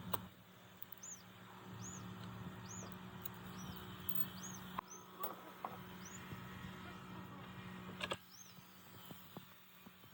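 A machine running with a steady hum that cuts off about eight seconds in, with a few sharp knocks and short high chirps repeating above it.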